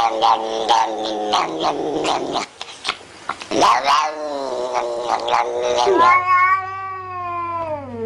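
Domestic cat yowling: a run of long, wavering yowls broken by a short pause about halfway, ending in a long yowl that slides down in pitch.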